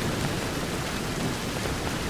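Steady rain falling against a window, an even hiss of many drops with no single drop standing out.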